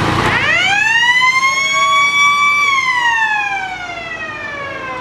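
A siren winding up, rising in pitch to a peak about two and a half seconds in, then slowly falling as it runs down.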